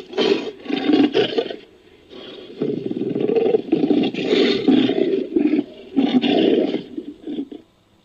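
Big-cat roaring, a sound effect standing in for the extinct American lion (Panthera atrox): a string of rough roars, a brief lull about two seconds in, then more roaring that stops sharply near the end.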